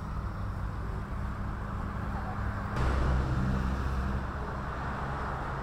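Steady low engine-like hum and rumble with a background wash of noise, changing abruptly about three seconds in.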